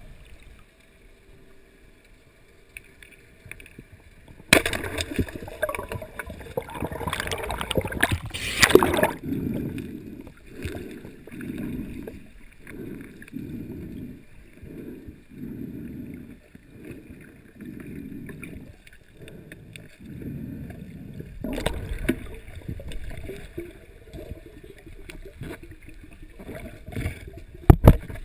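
Underwater water noise heard through a submerged action camera housing as a snorkeler swims: a burst of splashing, then a low whooshing about once a second with each swim stroke, then more splashing with a couple of sharp knocks near the end.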